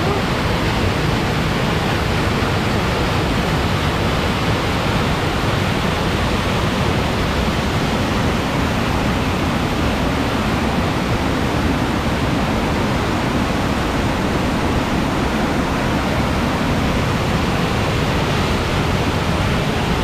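A large waterfall in heavy flow, close to the microphone: a loud, steady rush of falling water that never lets up.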